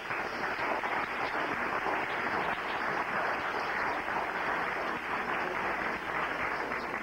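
Audience applauding, a steady spatter of many hands clapping.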